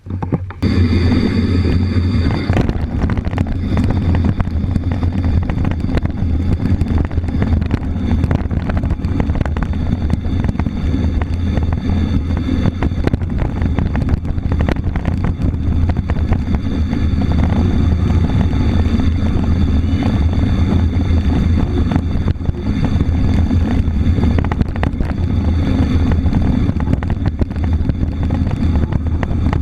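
Wind buffeting a bike-mounted camera's microphone, with the rolling rumble of a mountain bike riding over a rough trail. The steady low rumble starts suddenly and continues throughout.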